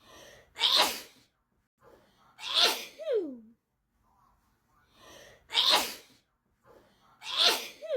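A person sneezing over and over in a fit: four sharp sneezes, each after a quick in-breath. Two of them trail off in a falling voiced tail.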